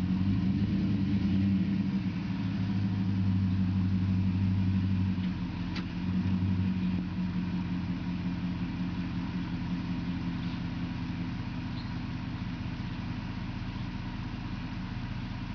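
Pickup truck engine running steadily under load as the truck pushes against a tree, easing off about five seconds in and then running quieter.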